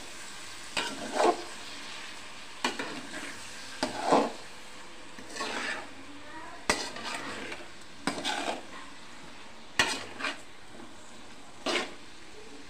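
Metal spatula stirring and scraping sliced tomatoes, onion and garlic around an oiled metal kadai, about one stroke a second, two of them sharp clicks of metal on the pan, over a steady low sizzle of frying.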